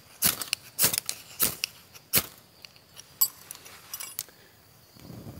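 Ferro rod struck four times, sharp rasping scrapes about two-thirds of a second apart, throwing sparks into tinder in a small folding metal wood stove to light it. A few lighter clicks follow, and a soft low rush comes near the end.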